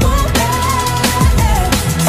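Background music: an electronic track with a steady beat and deep bass notes that fall in pitch.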